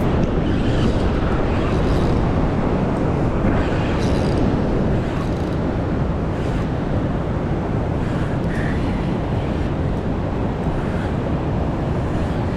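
Steady rushing noise of river water with wind buffeting the microphone.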